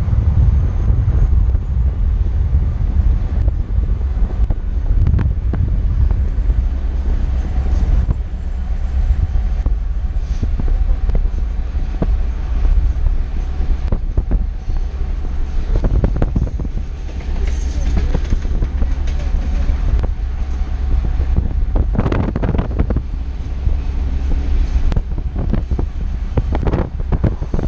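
Freight train rolling past: a BNSF rear distributed-power diesel locomotive and covered hopper cars, giving a steady deep rumble with wheel clatter and a few louder clanks. Heard from a car driving alongside the train.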